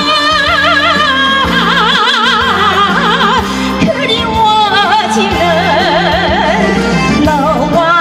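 A woman singing a Korean trot song with heavy vibrato on long drawn-out notes, including a sung "ah, ah", over instrumental accompaniment with a steady bass.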